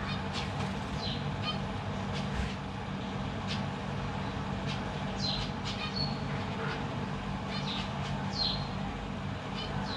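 Zebra finches giving short, nasal calls every second or two, some dropping in pitch, with quick stuttering ticks in between, over a steady low hum.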